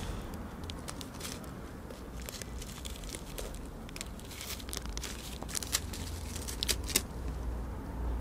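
Small clear plastic tackle packet crinkling and rustling in the fingers as a fishing swivel is taken out of it, in irregular short crackles.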